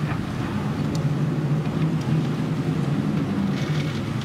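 Typhoon wind and heavy rain: a steady low rumble, with a few faint taps of drops.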